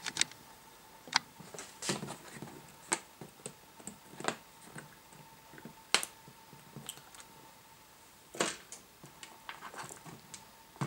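Irregular clicks and light knocks of alligator-clip test leads and a small circuit board being unclipped and handled on a workbench.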